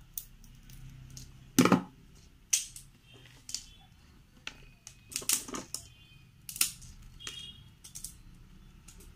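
Dried woody golden shower tree (Cassia fistula) seed pod being cracked open with pruning shears and snapped apart by hand: a series of irregular sharp cracks and clicks, the loudest about one and a half seconds in.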